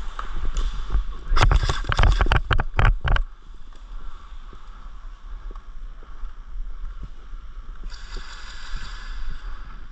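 A quick string of about eight sharp cracks over a second and a half, typical of an airsoft gun fired shot after shot, over a steady low rumble of movement. Near the end comes a hissing rush of about a second.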